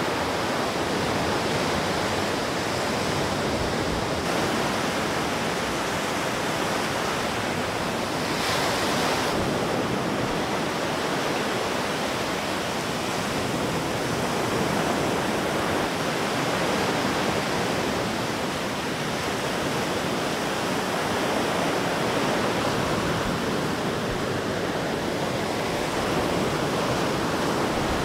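Steady noise of hurricane wind and surf on the coast, with a brief louder hiss about eight seconds in.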